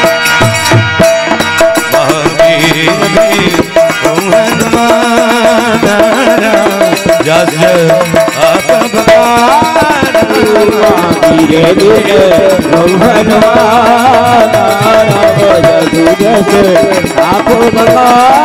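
Devotional chaupai music: a dholak drum and small hand cymbals keep a steady rhythm over a held keyboard tone. In the second half a wordless sung melody bends and wavers above them.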